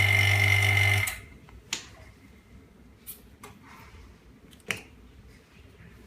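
Vacuum pump of an LCD separator machine running with a steady hum and a high whine, switched off abruptly about a second in. A few light clicks and taps follow.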